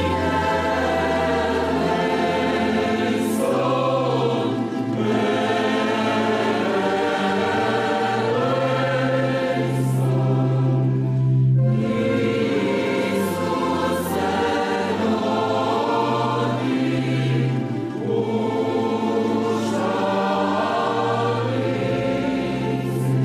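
Mixed church choir singing, accompanied by a tamburica orchestra, in phrases of several seconds with short breaks between them.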